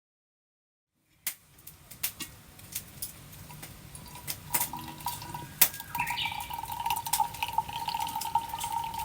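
Water trickling and dripping, with scattered sharp clicks and a steady high tone that grows louder about halfway through.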